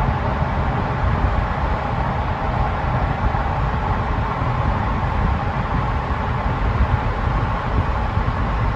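Steady road and tyre rumble with engine noise, heard from inside the cabin of a car driving through a road tunnel.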